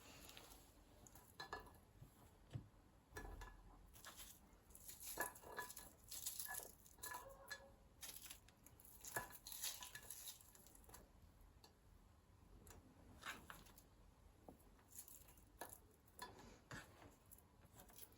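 Faint, irregular clinks and taps of kitchen utensils against dishes, some with a short bright ring, busiest in the middle stretch.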